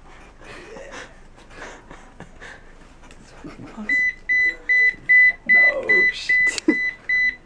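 Electronic alarm beeping in a fast, even series of short high beeps, about two and a half a second. It starts about four seconds in and becomes the loudest sound, with a brief voice-like sound beneath it near the end.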